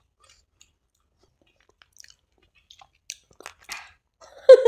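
Faint wet mouth clicks of the last chewing and swallowing about three seconds in, then near the end a loud open-mouthed 'aah' that falls in pitch.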